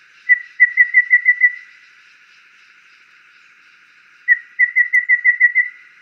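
Golden babbler singing: two phrases of clear whistled notes on one pitch. Each phrase is a single lead note followed by a quick, even run of six or seven notes; the second phrase begins about four seconds in.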